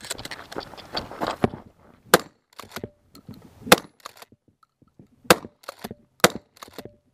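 Remington 870 pump-action shotgun fired at steel targets: four loud shots about a second or so apart, the slide racked with a short clack between shots. The first second and a half holds a dense scuffle of handling and movement noise before the first shot.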